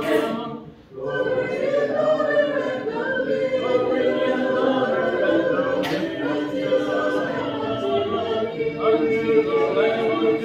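Congregation singing a hymn together in unaccompanied voices, with a short break for breath about a second in before the next phrase.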